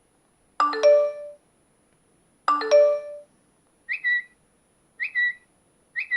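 iPhone 4 notification tones from the phone's speaker. A bell-like two-note chime sounds twice, then three short chirps, each sliding quickly upward, come about a second apart.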